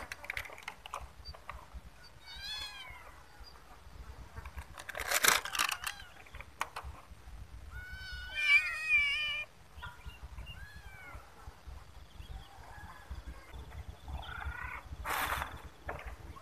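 Stray kittens meowing on and off, with several crying at once about eight seconds in. Short rustling noises come a few times in between.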